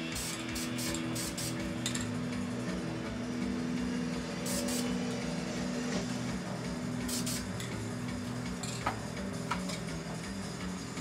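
Background guitar music with a steady bass line, with several short hissing bursts of an aerosol spray-paint can: a cluster in the first two seconds, then single bursts near the middle and later.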